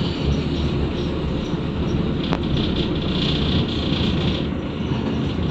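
Steady low rumble of a moving vehicle, with a brief click a little past the middle.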